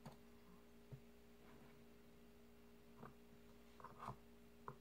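Near silence: a faint steady hum, with a few faint, short taps and clicks scattered through, at about one second, three seconds, around four seconds and just before the end.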